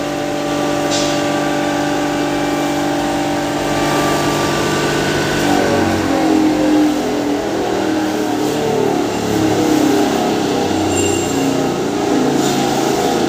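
Electric-motor-driven hammer mill (maize bharda grinder) running at speed: a loud, steady machine hum with several tones. About five seconds in, the sound turns rougher and uneven.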